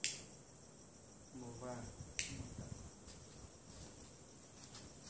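Crickets chirping steadily in a continuous high-pitched trill. A sharp click sounds at the very start and another about two seconds in, with a brief murmur of a voice just before the second.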